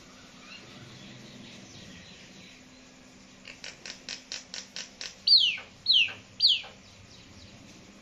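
Myna calling: a quick run of about eight clicking notes, then three loud whistles that slide steeply down in pitch, about half a second apart.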